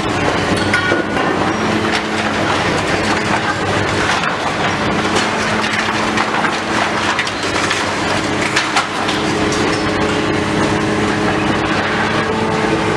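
Heavy demolition machinery running steadily, with a constant crunching and cracking of breaking debris over the engine's drone.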